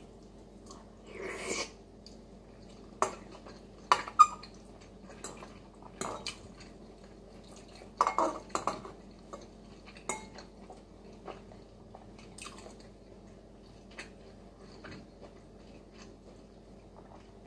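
Eating noodles from a ceramic bowl with a metal fork: scattered sharp clinks of the fork against the bowl, the loudest about three to four seconds in, with short slurping and chewing noises between.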